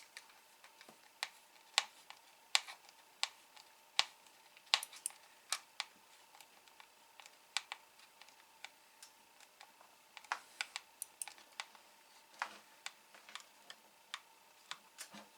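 Screwdriver turning the last screw into the plastic housing of a Hakko FR-301 desoldering gun: irregular sharp clicks of the tool and screw, with a quicker run of clicks about ten seconds in.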